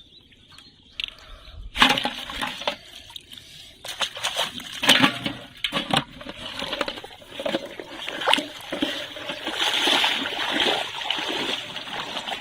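Water splashing and sloshing in irregular bursts, starting suddenly about two seconds in after a quiet opening.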